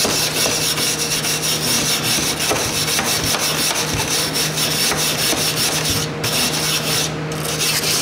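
Rapid scratchy scrubbing strokes across a window air conditioner's metal coil fins, working loose dust that has dried hard onto them, with brief pauses about six and seven seconds in.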